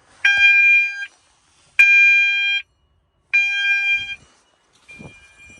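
Fire alarm sounder pulsing a steady, high-pitched tone in a coded on-off pattern: three blasts of about 0.8 s each, with pauses of about 0.7 s between them, while the system is in full alarm.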